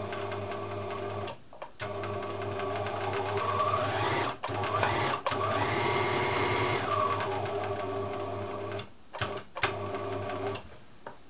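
Bernina 1000 Designer sewing machine running under its electric motor, with a brief pause about a second and a half in. It speeds up to a higher whine in the middle, slows back down, and stops shortly before the end.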